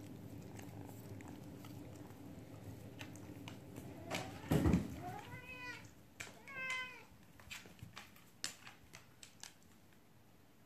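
Eleven-week-old kittens play-wrestling in a fabric cat bed. There is a thump about four seconds in, then two short kitten mews that rise and fall in pitch, with scattered light clicks and rustles as they scuffle.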